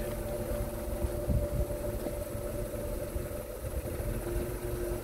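Smart Forfour's small three-cylinder petrol engine idling steadily, a low rumble with a faint steady whine over it.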